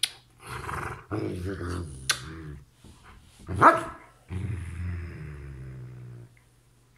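Belgian Malinois making long, low grumbling groans, the vocal fussing of a dog demanding attention, with a short, loud cry rising in pitch about three and a half seconds in.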